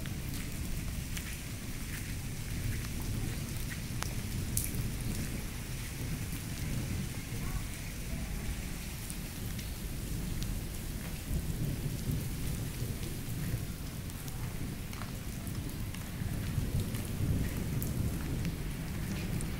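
Steady rain falling on paving and foliage, a continuous hiss over a constant low rumble, with a few sharp drip ticks scattered through it.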